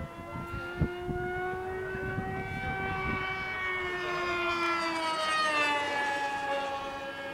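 Radio-controlled model airplane making a fast pass. Its motor and propeller drone at a steady pitch that swells to its loudest about five and a half seconds in, then drops in pitch as the plane goes by. A sharp click sounds just under a second in.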